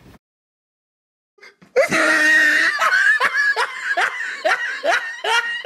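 After about a second and a half of dead silence, loud, high-pitched laughter breaks out: a quick run of repeated 'ha's, about three a second.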